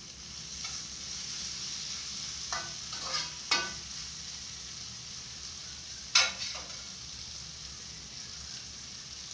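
Food sizzling in a frying pan on a gas stove while being stirred with a spatula. Several sharp clanks of the spatula against the pan, the loudest about three and a half and six seconds in.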